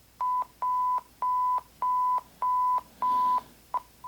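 French emergency alert signal: a single high electronic beep tone pulsing on and off, about six beeps in a row, each roughly half a second long, then two short pips near the end.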